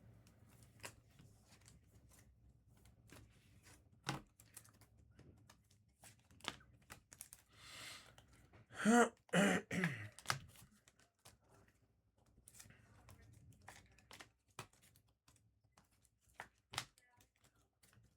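Scattered light clicks and taps, with a person clearing their throat about nine seconds in.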